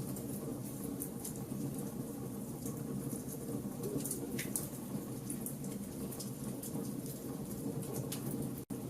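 Wood fire burning in a fireplace, crackling with frequent sharp pops over a steady low rumble of the flames. The sound cuts out for an instant near the end.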